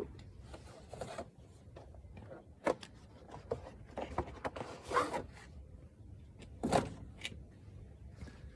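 Scattered light knocks and rustling from air filters being handled by hand, a few sharper knocks among softer rustles.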